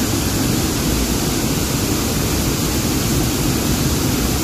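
Steady rushing of a waterfall pouring into its pool.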